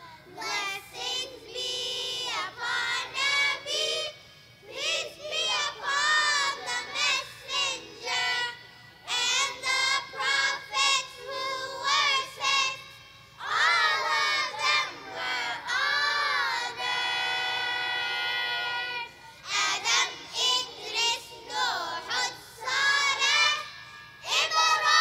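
A child's voice chanting melodically in short ornamented phrases separated by brief pauses, with one long held note about two-thirds of the way through.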